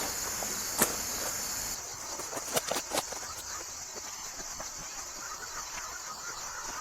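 Steady high insect chirring, with a few sharp clicks about a second in and again near three seconds in.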